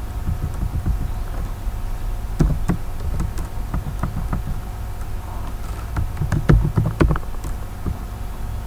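Computer keyboard keystrokes, scattered taps in two short flurries, over a steady low hum.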